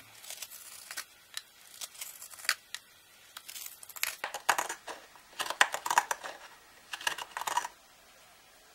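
A hook knife ground from an old saw blade cutting into the bowl of a wooden spoon carved from hard, very dry wood: a run of short, irregular scraping cuts that stop near the end.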